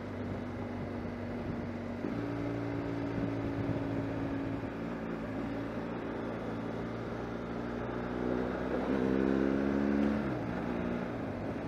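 BMW R1200 GS Adventure's boxer-twin engine running on the road under wind and road noise. It picks up about two seconds in, climbs in pitch and gets louder from about eight seconds in, then drops back just after ten seconds.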